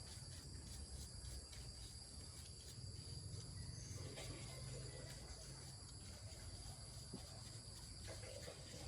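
Faint, steady high-pitched chirring of insects, like crickets, over a low rumble.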